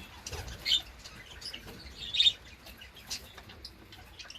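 Several budgerigars chirping: scattered short, high calls, with the loudest about a second in and again about two seconds in.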